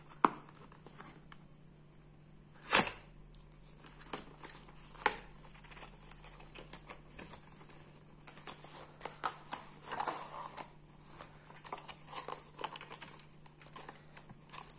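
Small cardboard product box being opened and its inner card tray pulled out by hand: scattered clicks and rustles of cardboard and paper, with a sharp snap about three seconds in, a smaller one at five seconds, and denser crinkling later on.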